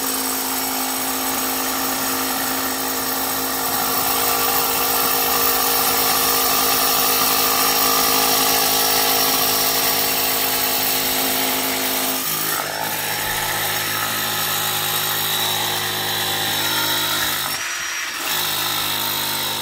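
Loud, steady machine hum from a running motor, made of several steady tones. The mix of tones changes about twelve seconds in, and the sound briefly drops out near the end.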